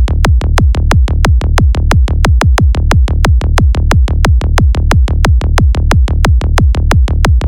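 Electronic bass-test music: a fast, even run of deep synthesized kick-drum hits, about six a second, each sweeping down in pitch, heavy in the bass.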